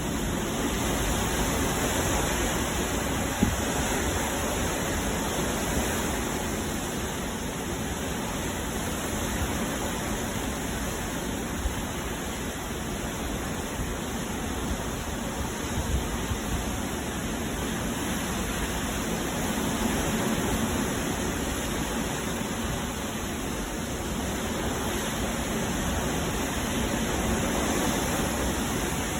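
Typhoon Haishen's storm wind and rain making a steady rushing noise that swells and eases in gusts. There is a single sharp knock about three and a half seconds in.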